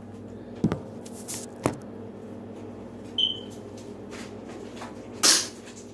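Handling in a kitchen: two sharp knocks, a short ringing clink, then a brief louder rustle near the end, over a steady low electrical hum.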